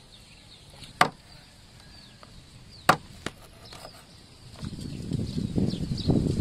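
Cleaver chopping through a frog onto a wooden chopping block: two sharp chops about two seconds apart, the second followed by a lighter knock. A low, uneven rumbling sound fills the last couple of seconds.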